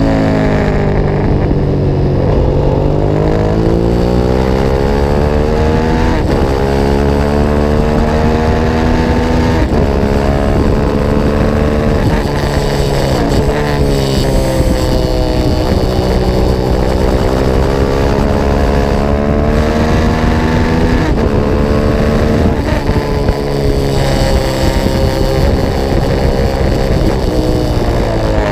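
Racing motorcycle's engine at speed on track, heard onboard, its pitch repeatedly climbing under throttle and dropping sharply as it shifts and brakes for corners.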